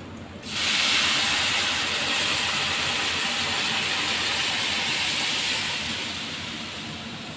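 Demi-glace stock poured into a hot pan of oil-roasted sliced mushrooms, breaking into a sudden sizzle about half a second in. The hiss holds steady, then slowly dies down near the end.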